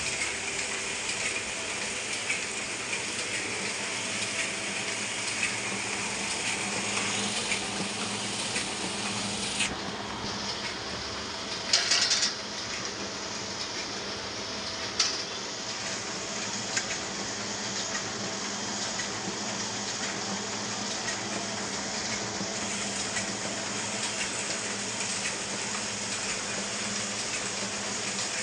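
Ryobi 3302H two-colour offset printing press running at full speed, about 10,000 sheets an hour, a steady mechanical whir and hiss. A brief loud clatter about twelve seconds in.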